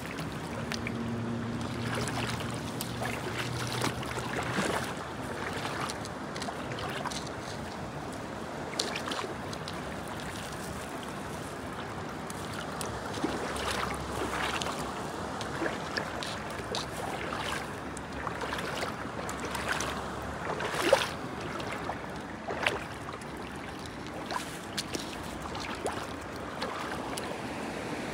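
River water splashing and sloshing in scattered bursts over a steady rush of water and wind, with one louder splash about three quarters of the way through.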